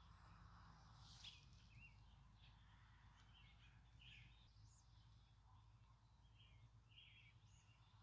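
Faint birdsong: several small birds chirping and calling in short, scattered notes, over a low steady background rumble.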